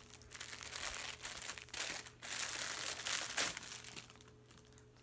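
Plastic packaging crinkling as it is handled, in irregular bursts that die away about four seconds in.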